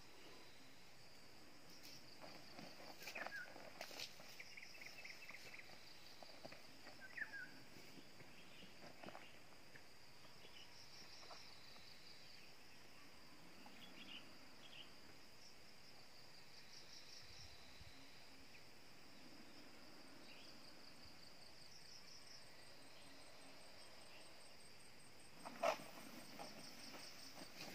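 Faint insects chirping outdoors: rapid pulsed trains that come and go over a steady high hiss. There are a few soft clicks early on, and one sharp knock near the end.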